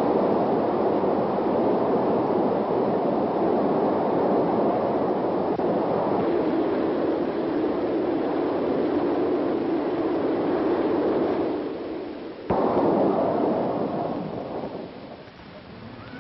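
Train running: a loud, steady, rushing rumble. It breaks off abruptly about twelve seconds in, comes back at once, then fades out near the end.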